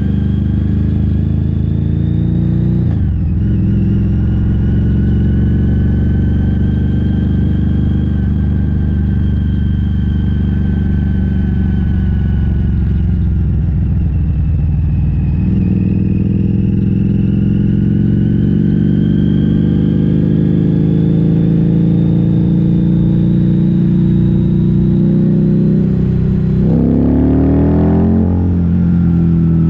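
Harley-Davidson V-Rod's V-twin engine running steadily, its pitch sagging and recovering a couple of times, with a quick rev up and back down near the end.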